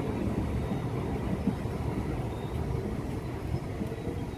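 Passenger train coach rolling over the rails, heard from an open doorway as the train runs into a station: a steady low rumble of wheels on track.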